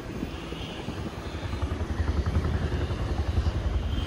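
A low, rapidly pulsing vehicle rumble that grows louder about a second and a half in.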